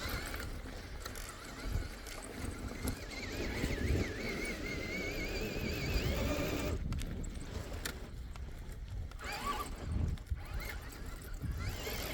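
Axial SCX6 Honcho RC crawler's electric motor and gears whining, the pitch wobbling and sliding with the throttle, over a low steady rumble.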